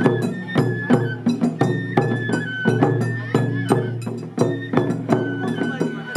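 Japanese festival hayashi music played by children: a high bamboo fife (shinobue) melody in held notes over taiko drum strikes, two or three beats a second.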